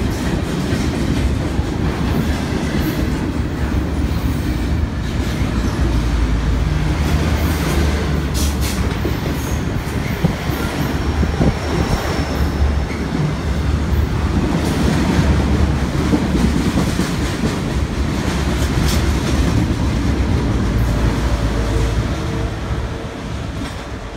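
BNSF double-stack intermodal freight train rolling past close by: a steady low rumble of the well cars, with clicks from the wheels passing over the rail joints. The sound eases off near the end as the last car goes by.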